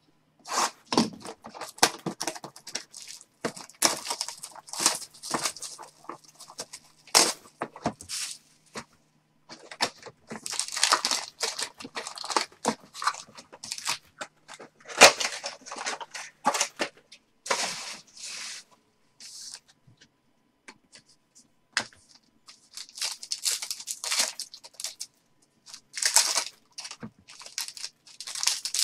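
Trading card packs and box packaging being torn open and crinkled by hand, in irregular bursts with short pauses between them.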